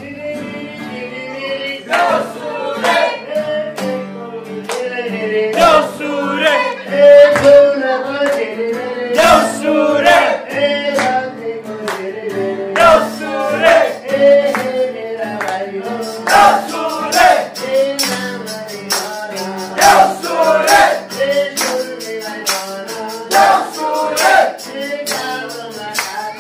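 A man sings a Nepali Deusi song into a microphone over strummed acoustic guitar, with a tambourine keeping a steady beat.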